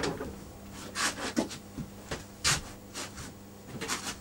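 Wooden beehive frame and wax foundation sheet being handled on a workbench: a knock at the start, then irregular rubs and scrapes of wood, over a steady low hum.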